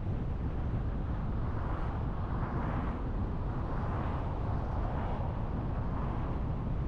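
Steady road and wind noise of a car driving: a low rumble with a rushing hiss that swells for a few seconds in the middle.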